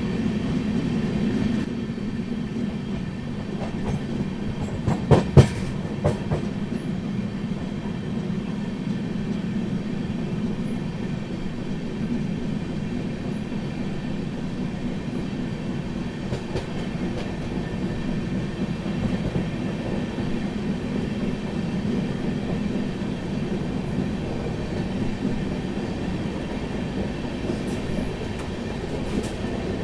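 Indian Railways passenger train running, a steady rumble with clickety-clack from the wheels on the rail joints. About five seconds in come a few sharp metallic clanks.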